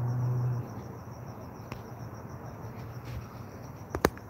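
Crickets chirping steadily in a high, evenly pulsing trill. A low hum cuts off about half a second in, and a couple of sharp clicks come near the end.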